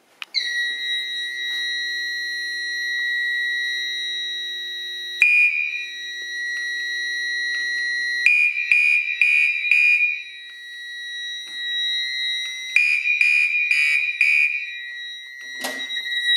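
Fire alarm horns and sounders on an ADT Unimode 10UD (Fire-Lite MS-10UD) conventional fire alarm system going off after a manual pull station is pulled. A steady high tone comes on right at the start. About five seconds in, a pulsing horn joins at about two pulses a second, in march-time coding that runs in bursts of about two seconds and stops between them; the owner puts this down to the panel accepting only about five seconds of coding at once. A short knock comes near the end.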